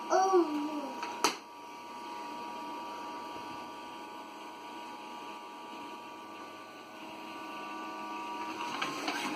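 A vacuum cleaner running with a steady hum. A child gives a short gliding vocal sound right at the start, and there is a sharp click about a second in.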